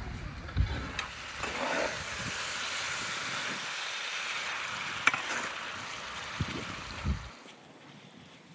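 Lamb pieces and onions sizzling in a wide metal pan over a wood fire while being stirred with a metal spoon, with a few knocks and a sharp clack of the spoon against the pan. The sizzling drops away near the end.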